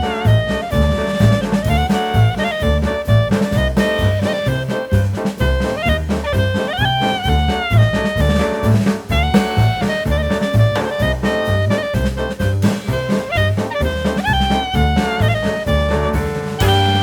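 Background music: an instrumental jazz piece with a saxophone-like horn melody over a steady drum beat.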